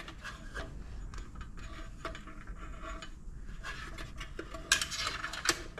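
Light clicks and clinks of small metal parts being handled while a motorcycle turn signal's wires are fished through its mount. Near the end comes a louder burst of rattling.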